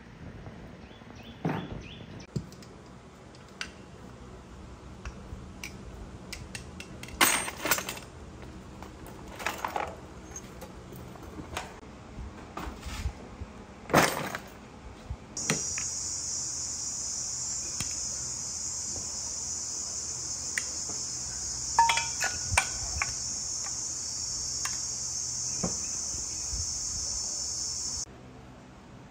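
Metal parts of a dismantled single-cylinder motorcycle engine clinking and knocking as they are handled and set down, with a few sharp clinks standing out. About halfway through, a steady high-pitched hiss starts, and it cuts off suddenly near the end.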